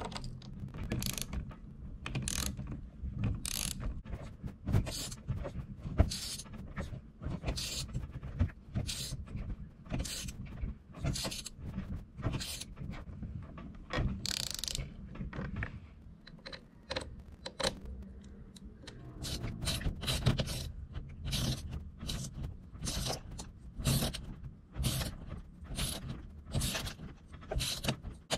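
Hand tools working small metal parts on an RC buggy's front shock tower and shocks: a hex driver turns screws, making a run of short clicking, scraping strokes about two a second, with a quieter pause partway through.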